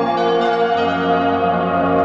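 Background music of sustained, layered tones that shift every second or so.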